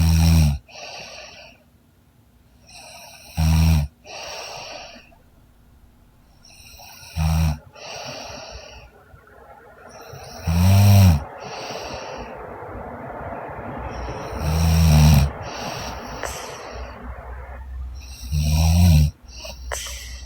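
A woman snoring heavily in deep sleep: six loud, rough snores come about every three and a half to four seconds. A fainter breathy sound follows each snore.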